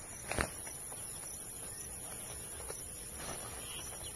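Steady high-pitched chirring of field insects, with a couple of sharp clicks about half a second in.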